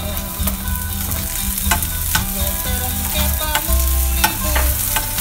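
Diced onions sizzling in hot olive oil in a stainless steel pan, stirred with a spatula that scrapes and clicks against the pan several times. A low steady hum runs underneath.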